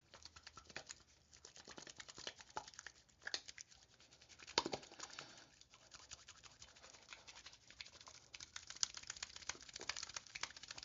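Foley sound effect: a dense, irregular run of crackling and pattering clicks, with one sharper crack about four and a half seconds in and the crackling thicker near the end.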